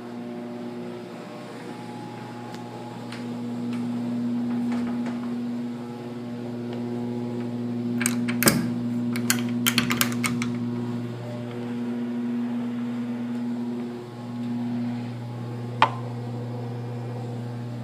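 A steady low electrical hum, with a quick cluster of sharp clicks and taps about eight to ten seconds in and one more sharp click near the end.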